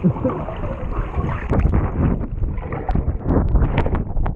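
Muffled underwater churning and bubbling of pool water, picked up by a GoPro submerged in the pool, with scattered knocks.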